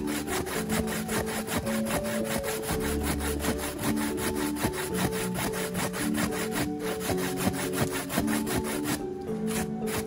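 Coconut flesh grated by hand on a flat metal grater: fast rasping strokes, about five a second, that stop about nine seconds in. Soft background music plays underneath.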